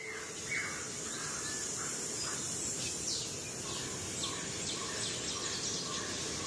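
Daytime forest ambience: several birds giving short chirps and downward-sliding whistles over a steady high insect drone.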